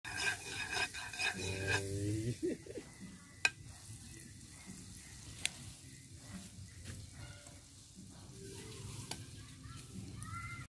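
Egg frying in oil in a frying pan, with a steady sizzle, while a metal spoon stirs and scrapes it, busiest in the first two seconds. A few single sharp clicks of the spoon against the pan come later.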